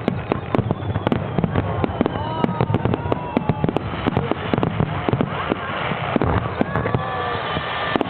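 Aerial fireworks display: a dense, unbroken barrage of bursts and crackles, many a second, with whistling tones gliding over it.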